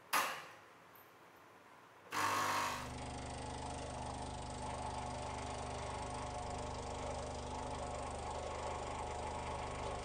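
Nuova Simonelli Musica espresso machine pulling a shot. A short click at the start, then about two seconds in the pump starts with a brief loud burst and settles into a steady hum.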